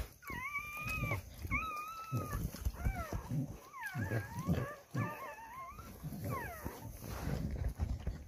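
Newborn American Bully puppies whining: a string of high-pitched cries. The first two are held for most of a second; the rest are shorter and waver up and down.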